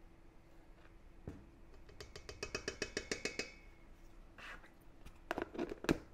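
A measuring spoon clicking rapidly against the rim of a plastic container, then the container's plastic lid being pressed on with several louder knocks and clicks near the end.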